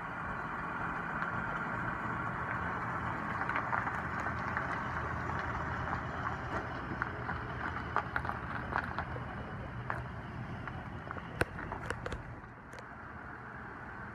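Lincoln Town Car stretch limousine's engine running, with scattered crunches of gravel; the sound drops somewhat near the end.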